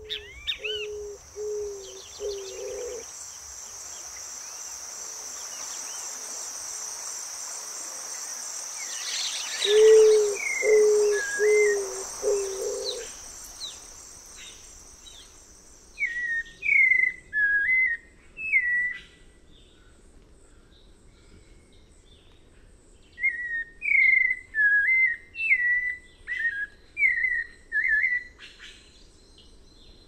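Wild birds calling with an insect buzzing. A low four-note call comes twice, while a high, steady, pulsing insect drone runs through the first half and then stops. After that come two runs of short, loud, whistled songbird phrases.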